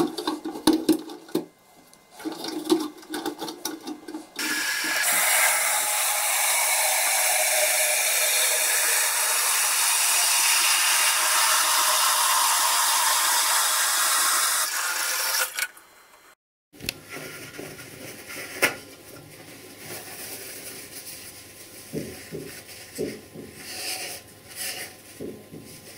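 Plastic clicks and rubbing as the flush valve assembly is fitted back into a concealed cistern. Then a hand-held bidet shower sprays water into the cistern in a steady hiss for about eleven seconds, filling it to test the new flush valve seal for leaks. After a short break, soft scattered handling sounds.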